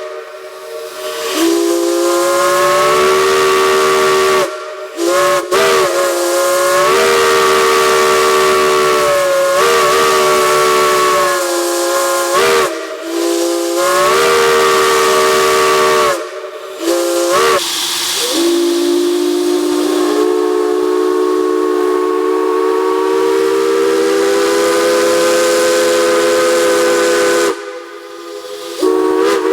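A chime steam whistle blowing a run of long blasts with brief breaks between them. The longest blast lasts about ten seconds, and the chord of several tones bends in pitch as each blast opens. A steady steam hiss sits under it.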